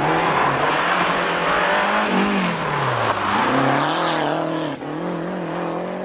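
Rally car engine at full throttle on a dirty, gravel-strewn stage. The revs fall about two seconds in, then climb and waver as it powers out of the bend and passes close by, over a steady rush of tyre and road noise.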